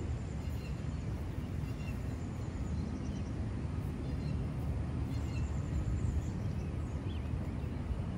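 Steady low rumble of wind on the microphone, with a few faint bird chirps now and then.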